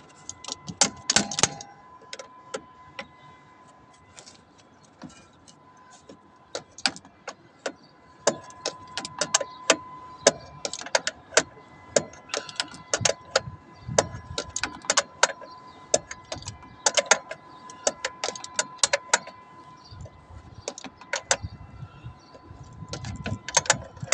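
Sharp metal clicks and clinks of a pipe wrench on the brass fitting of a small electric water pump's inlet pipe, coming irregularly, sometimes in quick runs, as the joint is tightened.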